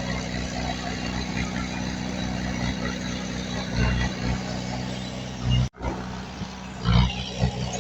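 Heavy diesel engine of earthmoving machinery running steadily. The sound cuts out for a moment about three-quarters of the way through, then carries on.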